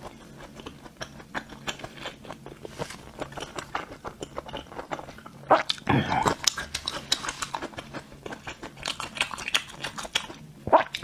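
Close-miked chewing of saucy skewered food: a string of wet mouth clicks and smacks, with a louder burst of chewing about halfway through.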